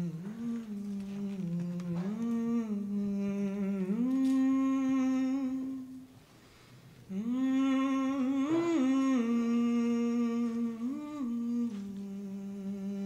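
A woman humming a slow wordless melody on long held notes that slide up and down between pitches, breaking off for about a second midway before going on.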